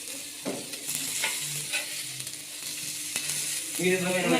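Chicken pieces sizzling as they fry in a pan, with a few sharp knocks of a utensil moving them. A voice starts near the end.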